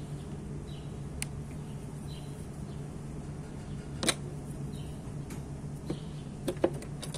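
Sharp clicks and knocks of a scooter's CVT transmission cover being handled and worked loose by hand. There is one knock early, the loudest about four seconds in, and a quick cluster near the end, over a steady low hum and faint chirps that repeat about every second.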